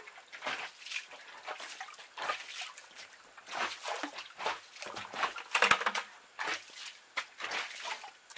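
Muddy water being scooped and poured into buckets by hand: irregular sloshing and splashing, with a louder splash and knock a little past halfway.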